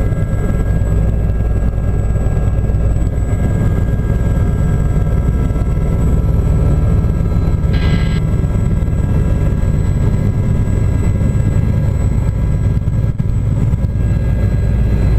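Aérospatiale Gazelle helicopter running steadily, heard from inside the cabin: a dense low rotor and turbine rumble with a faint steady whine above it. There is a brief hiss about eight seconds in.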